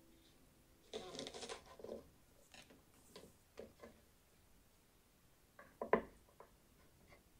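Faint kitchen handling sounds: light taps and scrapes of cut spring onion pieces moved on a wooden cutting board, with a louder single knock about six seconds in as a plate is set on the board.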